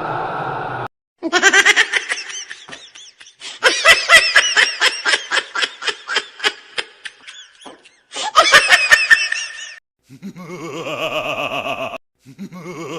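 A string of separate laugh sound effects played one after another with short silent gaps between them. The longest, in the middle, is a rapid high-pitched cackle lasting about four seconds.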